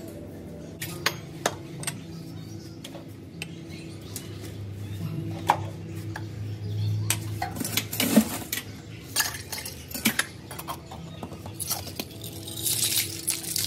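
Clinks and knocks of a plastic cup, glassware and a stainless steel cocktail shaker being handled and set down on a wooden tray while a drink is made, with a denser clatter near the end.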